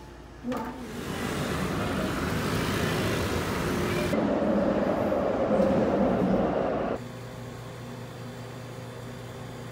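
Loud, steady traffic-like street noise that cuts off abruptly about seven seconds in, leaving a quieter, steady room hum like a fan or air-conditioning.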